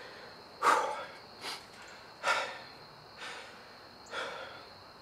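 A man breathing hard and fast in short, noisy breaths, about one a second, the loudest near the start. It is the excited, heavy breathing of a hunter who has just shot a deer.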